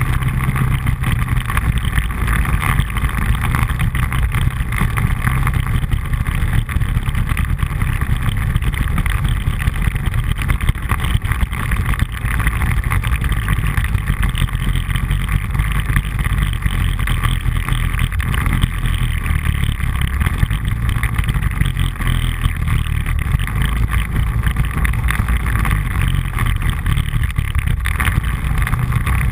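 ATV engine running under way on a rough dirt trail, loud and close, steady throughout with small rises and falls as the throttle changes.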